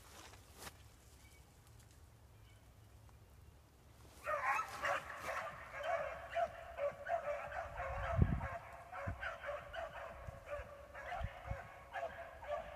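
A pack of beagles baying as they run a trail: the overlapping yelps and bawls start about four seconds in and keep going. A low thump comes about eight seconds in.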